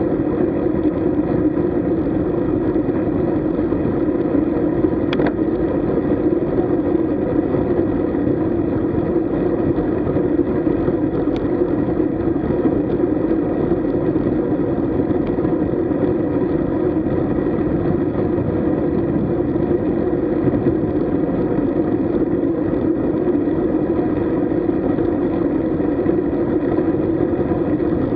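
Steady rushing noise of a road bike ride: wind and tyre noise on tarmac picked up by a camera riding along. It stays even throughout, with a faint click about five seconds in and another about eleven seconds in.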